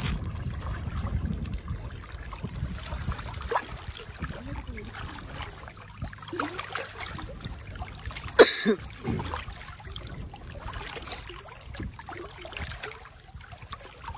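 Water trickling and splashing lightly around a raft floating on plastic drums. A single short, sharp, loud sound comes about eight seconds in.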